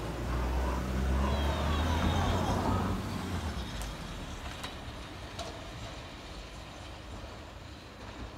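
Single-car Eizan Electric Railway 700 series electric train running away along the track. A heavy rumble, with a gliding whine above it, is loudest for the first three seconds and then fades. A few sharp clicks follow, spaced under a second apart.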